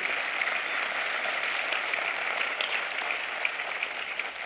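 Congregation applauding, a steady clatter of many hands that eases off slightly near the end.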